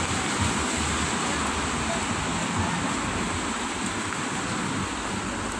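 Steady rain falling on a paved street, heard as an even hiss with no breaks.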